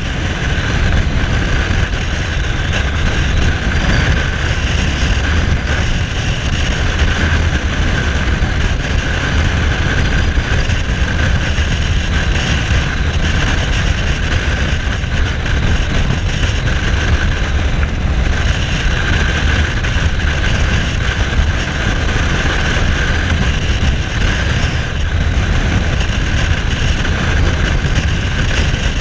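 Cruiser motorcycle engine running steadily at road-cruising speed, heard from the rider's seat, with a constant low rumble and no change in pace.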